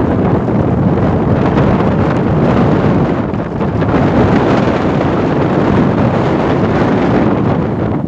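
Wind buffeting the microphone aboard a yacht under sail: a loud, steady rushing noise.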